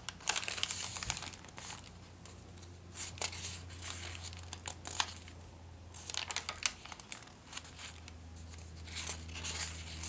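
Paper pages of a handmade junk journal being turned and handled: dry rustling and crinkling of paper, coming in several irregular flurries.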